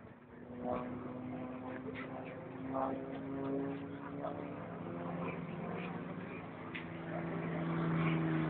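Propeller aircraft's piston engine droning steadily, its pitch shifting slightly and growing louder toward the end as it comes closer.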